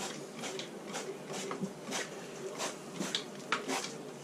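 Hand-pump olive oil sprayer being worked over raw chicken halves on a sheet pan: a quick series of short spritzes, about two to three a second.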